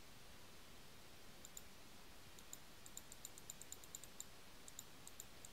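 Faint, quick clicking of a computer mouse's scroll wheel being turned notch by notch. The clicks start about a second and a half in and then come several a second.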